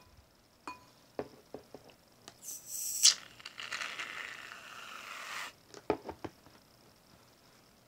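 Aerosol shaving cream can hissing as it sprays foam, starting about two and a half seconds in and lasting about three seconds. Light clicks and taps of a spatula against a glass bowl come before it and again just after.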